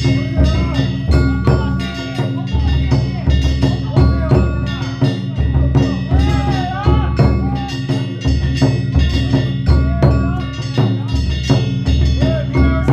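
Danjiri festival music: a taiko drum beaten in a fast, steady rhythm with small hand gongs clanging rapidly over it. Voices call out above the percussion.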